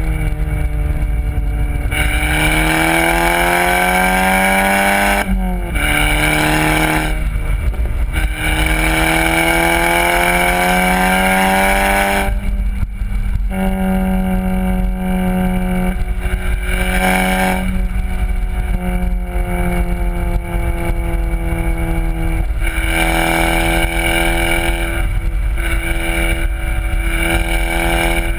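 VW Golf R's turbocharged 2.0-litre four-cylinder through a Borla aftermarket exhaust, driven hard: the engine note climbs through the revs, drops at an upshift about five seconds in, climbs again until about twelve seconds in, then lifts off to steadier, lower revs with short pulls and a final climb near the end. Heavy wind rumble on the outside-mounted microphone.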